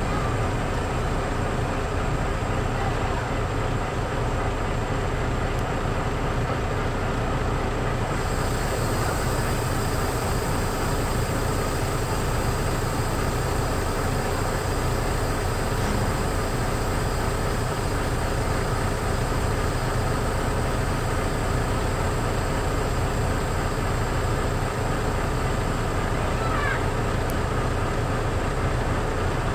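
Steady low diesel engine rumble with a slow, even throb, heard from inside a truck cab standing on a ferry deck. A faint high hiss comes in about eight seconds in.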